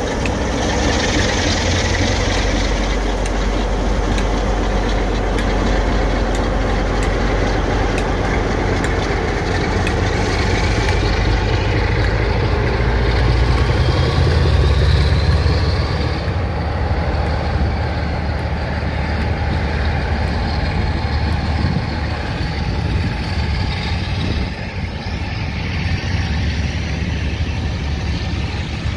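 Class 47 diesel locomotive's Sulzer V12 engine working hard as the locomotive pulls a train away under power, with a rising whine. It is loudest about halfway through, then eases a little as the locomotive draws away.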